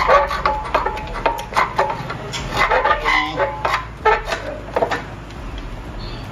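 Clinks, knocks and scraping of a metal aftermarket exhaust pipe being handled and worked into its mid-pipe joint, with many short sharp taps throughout.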